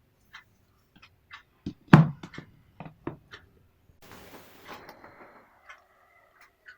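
Clicks and knocks of an iPad being handled, with one louder thump about two seconds in. A brief hiss follows about four seconds in, then a few faint high chirps near the end.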